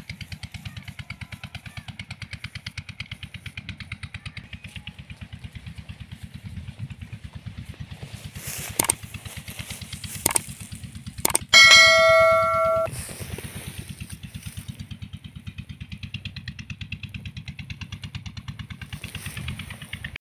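Three sharp mouse-click sound effects a second or so apart, then a bright bell-like notification chime lasting about a second: the sound of a subscribe-button animation. Under it all, an engine chugs steadily with an even low pulse.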